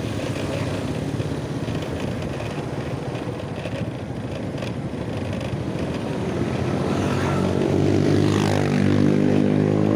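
Motor vehicle engine running steadily along a road. A louder engine comes close and passes about eight seconds in, its pitch shifting as it goes by.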